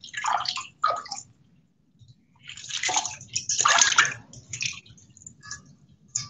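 Water splashing in a kitchen sink as pickled mustard greens are rinsed by hand to wash out sand. It comes in uneven gushes, with a short pause about a second and a half in.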